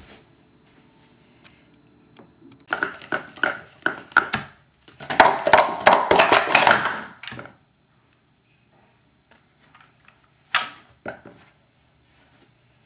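Plastic sport-stacking cups (Speed Stacks) being worked through a quick 3-3-3 stack on a mat. First comes a run of sharp plastic clicks, then a dense rattling clatter as the cups are handled fast. A single sharp click follows a few seconds later.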